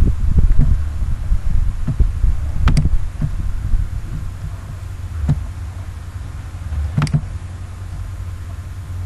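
A steady low rumble with a few dull thumps in the first two seconds. Three sharp computer mouse clicks come spaced over the rest, as menu items are clicked.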